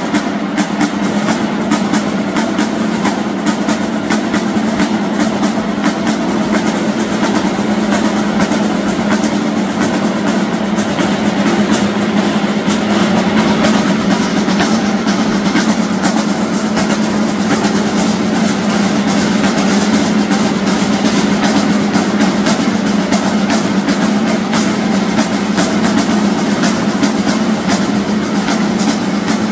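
Marching drumline playing together: snare drums, tenor drums, bass drums and hand cymbals in a dense, continuous cadence of rapid strokes.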